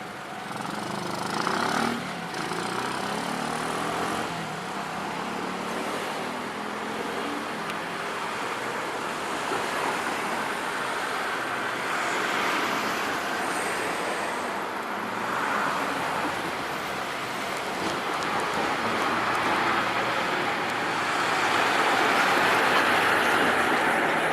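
Road traffic: cars and other motor vehicles passing one after another, each swelling and fading, loudest near the end.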